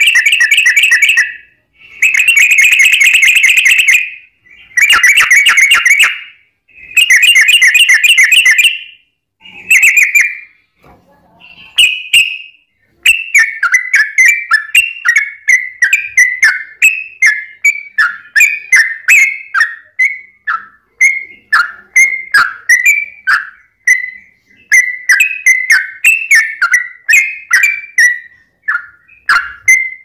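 Yellow-vented bulbul (trucukan) singing: four long, very fast trilled phrases in the first nine seconds, the rapid 'ropel' song, then after a short pause a steady run of short separate notes about two a second, rising and falling in pitch.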